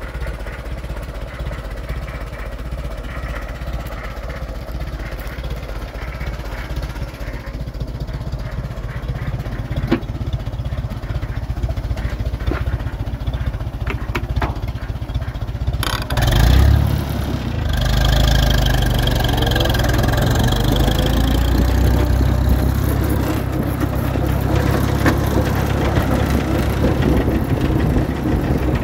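1951 Farmall BM tractor's four-cylinder engine idling steadily, then a little over halfway through it suddenly picks up and runs louder as the tractor drives off, with a faint rising whine for a few seconds.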